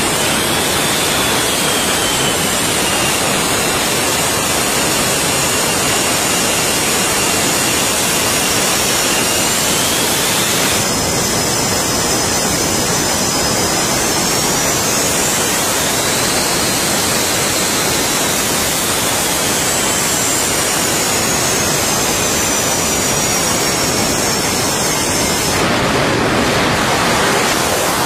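F/A-18 jet engines running at high power: a steady loud roar with turbine whines that slowly rise and fall in pitch. The whines change abruptly about eleven seconds in and again near the end.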